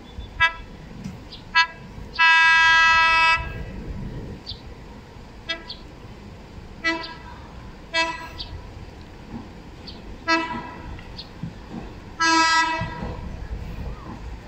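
Philippine National Railways train sounding its horn repeatedly as it approaches: a series of short toots with two longer blasts, one about two seconds in lasting about a second and another near the end, over a low rumble.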